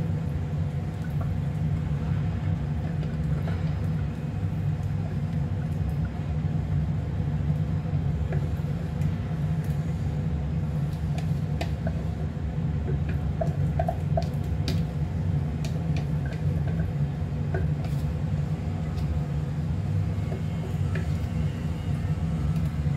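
Steady low mechanical hum, with a few faint taps and clicks as thick peanut sauce is poured from a blender jar onto noodles in a steel bowl.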